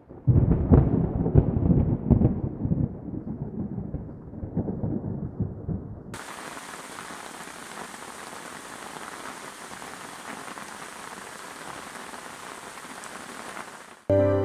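Strong wind gusting over the microphone: a low, uneven rumble with repeated surges. About six seconds in it cuts to the steady hiss of falling rain.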